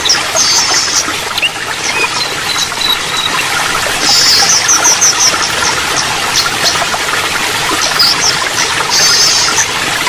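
Steady rush of running water with small songbirds chirping high and quick over it, breaking into short rapid trills several times, near the start, in the middle and near the end.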